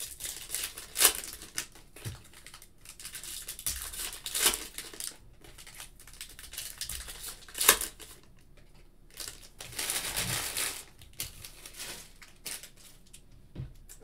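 Foil trading-card pack wrappers crinkling and tearing as they are opened by hand. Irregular rustling with a few sharp crackles, and a longer rustle about ten seconds in.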